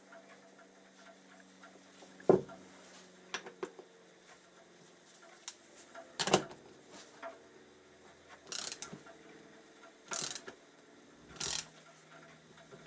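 Hand tools and metal brake parts being handled on a workbench: a few sharp clacks and knocks, then three short rasping bursts in the second half, like a socket ratchet working on a seized fitting.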